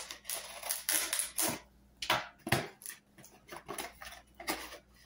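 Brown paper packaging being torn open and crumpled by hand: a run of irregular, rustling ripping sounds.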